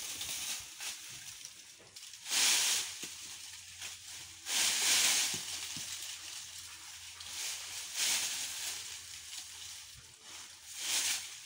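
Dry, dead chayote vines and leaves rustling as they are pulled down by hand, in about five separate bursts a couple of seconds apart.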